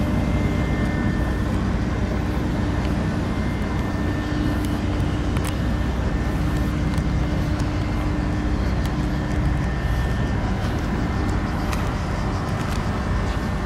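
Steady low drone of ferry engines running in the harbour, with a humming tone that drops away about nine seconds in.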